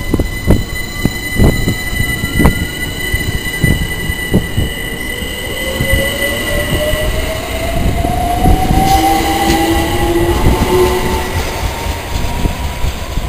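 London Overground Class 378 electric train pulling away and accelerating, its traction motors giving a whine that rises in pitch, with wheels clicking over rail joints.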